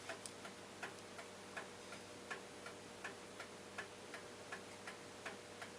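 Mechanical clock ticking steadily and faintly, two to three ticks a second, some ticks louder than others, over a faint steady hum.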